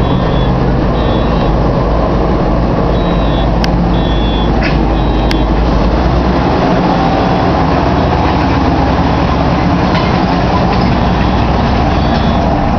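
M18 Hellcat tank destroyer driving past close by, its nine-cylinder Continental radial engine running loud and steady over the rumble of the tracks. The engine note shifts about six seconds in as the vehicle passes.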